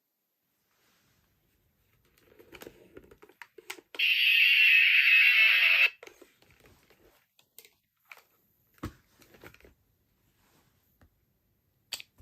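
Plastic clicks from a toy transformation belt being handled, then a loud two-second electronic hissing effect from its small speaker, cutting off suddenly, followed by more scattered clicks and a knock.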